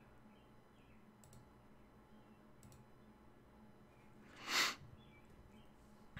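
Faint mouse clicks, two of them in the first three seconds, over quiet room tone. About four and a half seconds in there is one short, louder rush of noise lasting about half a second.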